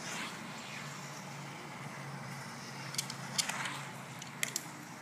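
Battery-powered 80 mm ducted-fan tether car circling the track, heard faintly as a whoosh that swells as it passes, at the start and again about three and a half seconds in. A few sharp clicks come about three seconds in.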